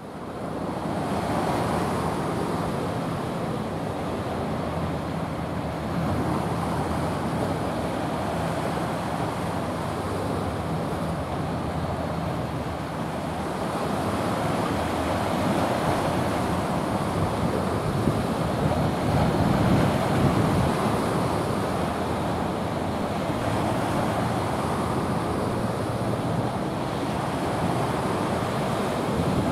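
Wind buffeting the microphone over the rushing wash of sea water as a small coastal cargo ship passes, with a low steady drone underneath. The sound fades in during the first second.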